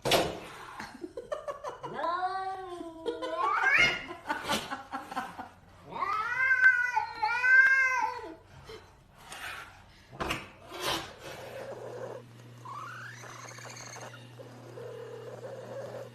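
Domestic cat meowing: a run of long, wavering meows that rise and fall in pitch, the two loudest about six to eight seconds in, with a few sharp knocks between them. After about eleven seconds the calls turn faint over a steady low hum.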